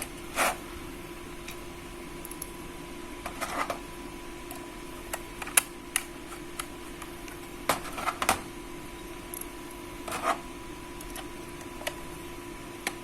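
Small scattered clicks and taps of a screwdriver and screws as an SSD is screwed into a laptop hard-drive bracket, over a steady faint hum.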